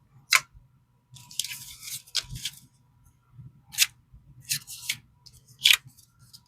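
Cash and paper being handled at a table: light rustling and crinkling, with three sharp clicks spread across the stretch.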